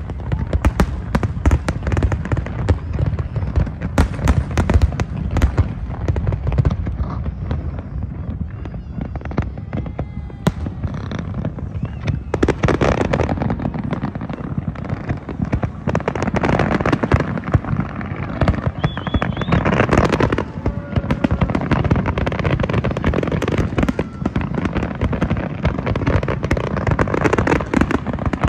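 Large fireworks display: a rapid, continuous barrage of bangs and crackling, with the crackle growing denser from about halfway through.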